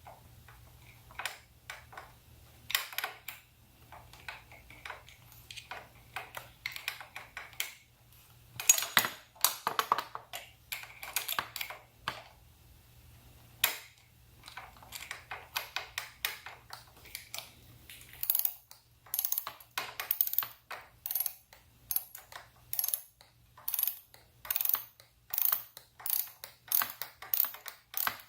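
Ratchet with a 10mm socket clicking as a bolt is turned in. First come irregular clicks and rattles, then from about two-thirds through a steady run of ratchet strokes, one click burst roughly every half second.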